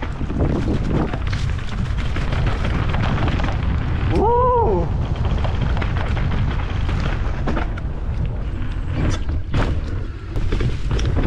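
Mountain bike riding down a rough dirt trail, heard from a handlebar-mounted action camera: constant wind buffeting and low rumble, with knocks and rattles as the bike runs over the uneven ground. About four seconds in, a short tone rises and falls.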